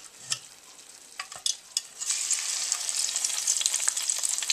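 A few light clicks, then about two seconds in, frozen crinkle-cut fries lowered in a wire basket into hot oil in a deep fryer set off a sudden, loud, crackling sizzle that carries on.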